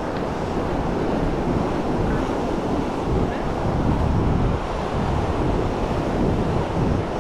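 Surf washing onto a sandy beach, with wind buffeting the microphone in uneven gusts.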